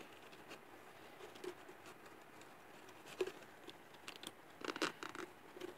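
Faint clicks and taps of a tube-shaped plastic pencil box being handled and its cap worked open, with a brief cluster of clicks near the end.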